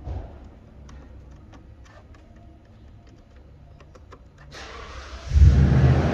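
Scattered light clicks and taps of a test-light probe and fingers on plastic fuses in a car's fuse box. About five seconds in, a loud low engine rumble starts and drowns them out.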